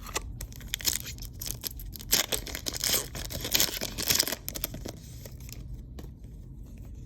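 Trading card pack wrapper being torn open and crinkled by hand, with a run of sharp rips and rustles that is loudest about two and three and a half seconds in, then a few lighter crinkles.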